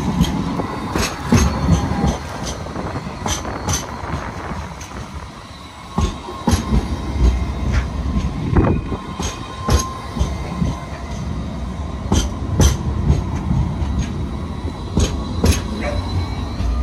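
Citadis X05 light-rail tram running past at close range: its wheels clack repeatedly and irregularly over the track over a low running rumble, with a thin steady wheel squeal at times.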